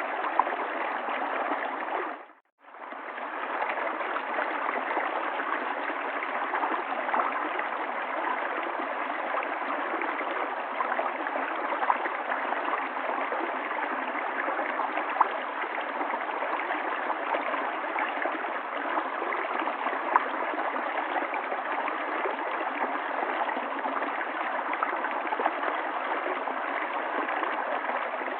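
River water flowing and gurgling steadily. The sound cuts out briefly about two and a half seconds in, then fades back in.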